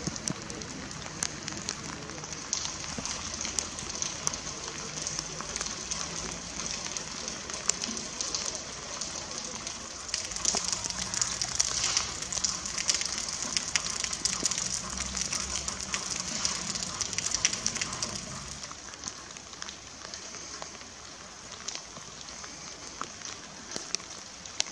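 Steady rain falling on wet pavement, a hiss full of fine drop ticks. A low background rumble underneath drops away about three-quarters of the way through.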